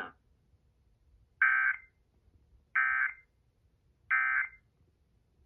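Emergency Alert System end-of-message data tones: three short bursts of SAME warble, about a second and a half apart, played through a Sangean HDR-15 radio's speaker. They mark the end of a required monthly test alert.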